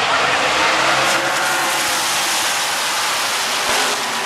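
A pack of NASCAR stock cars' V8 engines running past on the track in a continuous loud rush. It is loudest about a second in, then settles into a steady engine drone as more cars follow.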